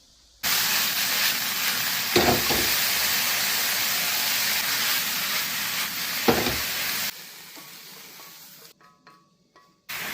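Food sizzling as it is stir-fried in a wok, a loud, even hiss with two short knocks of the spatula against the pan. It cuts in abruptly and cuts off abruptly about seven seconds in.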